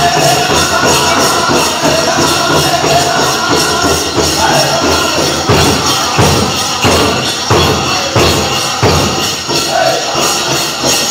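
Powwow drum group singing a chicken dance song over a steady drumbeat, with the jingling of the dancers' bells; several heavier drum strokes stand out in the middle.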